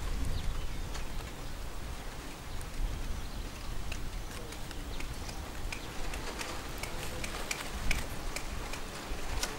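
Small crackles and ticks of dry leaves and string being handled as a wrapped bundle is tied with string, over a low steady rumble.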